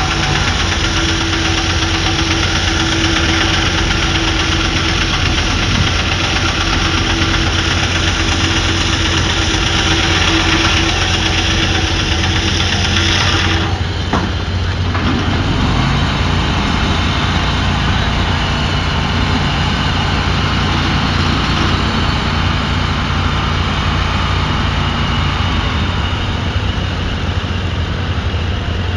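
An engine running steadily. About halfway through, a higher steady tone drops out and the sound changes.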